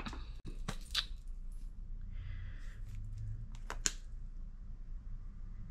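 A few light clicks and knocks of small makeup containers being handled and set down, with a short rustle a little over two seconds in.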